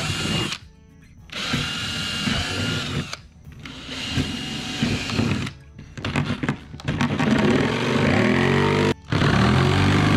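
Ryobi cordless drill boring into the plastic wall of a cooler, run in short bursts with brief pauses, each burst carrying a steady high motor whine. The second half is louder and denser.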